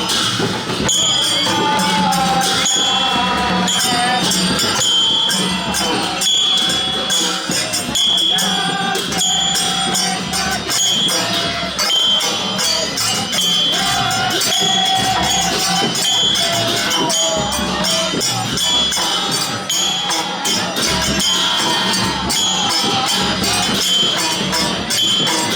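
Traditional festival procession music: metal percussion jingling and clashing in a steady rhythm, with a wavering melody line over a low steady drone.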